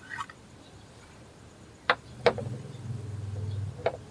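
Engine oil dipstick being handled during an oil-level check: three sharp clicks, the second followed by a low hum lasting about a second and a half.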